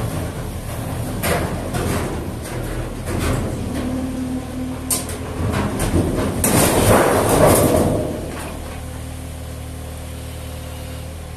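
Yanmar SV18 mini excavator's three-cylinder diesel running under hydraulic load while its bucket pushes and drags a large sheet-metal box, with clanking and metal scraping. The scraping and clatter are loudest about six and a half to eight seconds in, after which the engine runs on more steadily.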